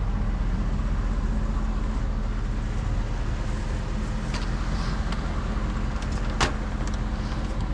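Vehicle engine running with a steady low hum, with a few light clicks and one sharper click about six and a half seconds in.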